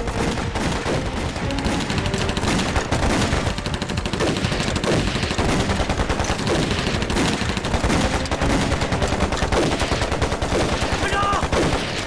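Heavy, unbroken gunfire: many guns, pistols and machine guns, firing rapidly at once in a dense volley.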